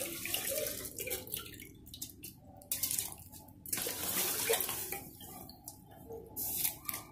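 Water splashing and trickling as soaked rice and its water are scooped by hand from a bowl and tipped into a pot of water for par-boiling, with a few light knocks of the bowl against the pot.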